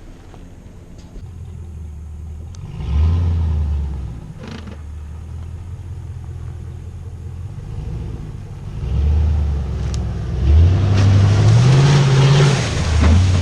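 Pickup truck engine revving in surges under load, pulling a stuck truck out of the mud on a tow strap; the revs climb toward the end with a rough noise over them.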